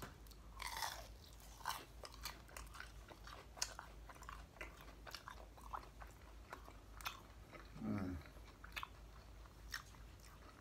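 Biting into and chewing crispy fried lumpia (Filipino spring rolls), many small sharp crunches of the fried wrapper. A brief low hum comes about eight seconds in.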